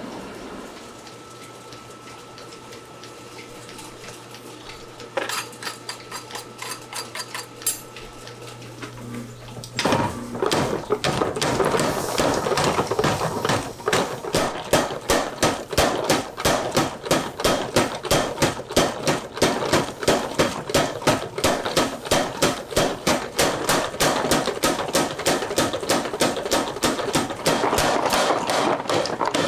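A steady hum by the coal forge, with a few scattered strikes, then about ten seconds in a power hammer starts pounding a red-hot steel knife blank with rapid, regular blows, several a second.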